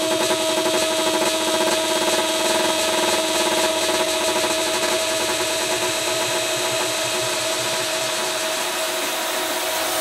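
Minimal techno track: a gritty, grinding synth texture over steady held notes and a fast pulsing low end that thins out near the end.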